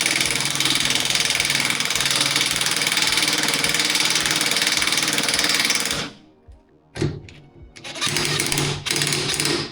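Impact wrench driving bolts: a long run of about six seconds that cuts off abruptly, then a short blip and a second run of about two seconds near the end.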